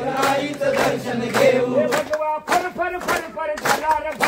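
Men of a shahiri troupe singing a Marathi folk song in chorus over a steady drum beat of about two strokes a second. A long held note gives way, about halfway through, to shorter sung phrases.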